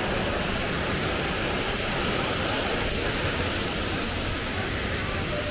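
Waterfall about 20 m high in full rainy-season flow: a steady, even rush of falling water.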